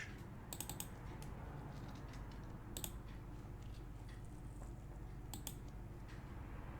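A few scattered light clicks on a computer keyboard, a couple of seconds apart, over a faint steady low hum.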